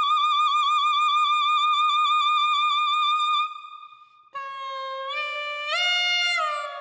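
Clarinet mouthpiece and barrel played on their own, with a hand cupped around the barrel's end: a held high tone with a fast warble stops about three and a half seconds in. After a short gap a lower tone begins, steps up twice and drops back down, fading near the end.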